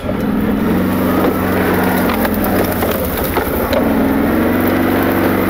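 Quad (ATV) engine running steadily as the machine moves through brush, with branches scraping and cracking against it.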